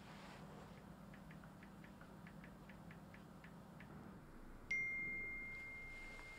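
Smartphone keyboard ticking as a message is typed, about four taps a second, then a single bright notification chime on a phone about four and a half seconds in, holding one pitch and slowly fading.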